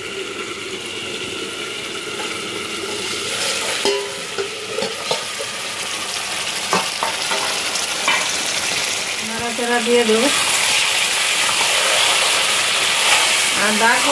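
Spiced meat curry sizzling in an open steel kadai while a metal spatula stirs it, with a few clicks and scrapes of the spatula against the pan. The sizzle grows louder in the second half as the meat fries down in its masala.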